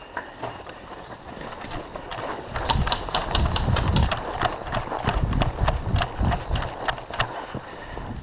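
Running footsteps with rattling kit, starting quietly and growing loud and busy from about two and a half seconds in, with heavy rumbling on the microphone as it moves.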